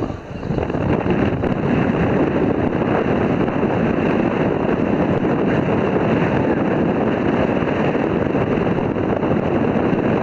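Steady wind buffeting the microphone over a rushing of boat and sea noise. The noise dips briefly just at the start.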